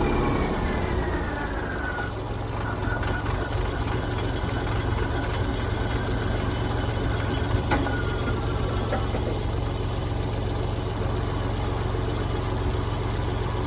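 Kubota L3901 tractor's diesel engine running with the PTO-driven wood chipper behind it. Over the first two seconds a falling whine shows the machinery slowing after chipping. The engine then idles steadily at low speed.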